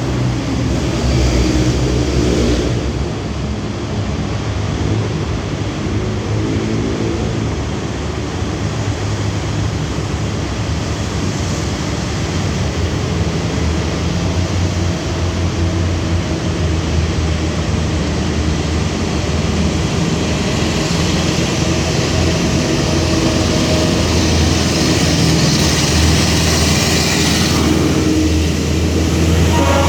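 Alsthom 4124, a diesel-electric locomotive, running steadily with a low engine hum. In the second half a rushing hiss builds, then stops abruptly near the end.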